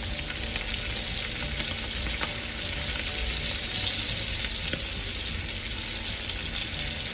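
Small chapila fish shallow-frying in hot oil over medium heat in a nonstick pan: a steady sizzle with scattered small crackles and pops.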